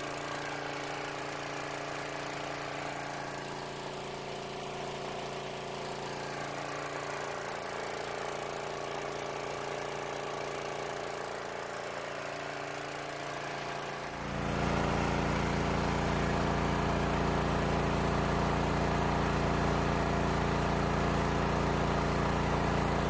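Ridgid 7000-watt portable generator's engine running steadily on gasoline, with the natural gas conversion kit still installed. About fourteen seconds in the engine sound becomes louder and deeper.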